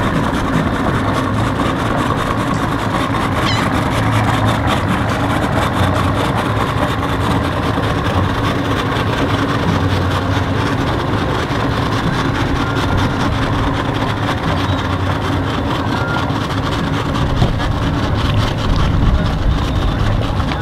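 Outboard motor on a center console boat idling along at low speed, a steady low hum.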